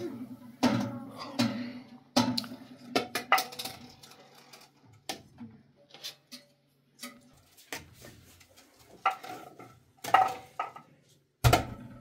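Dishes and pots being handled: scattered clinks and knocks at irregular intervals, with short ringing after some of them.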